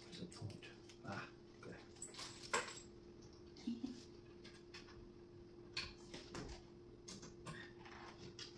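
Faint scattered clicks and knocks of nightstand panels and hardware being handled during assembly, over a steady hum.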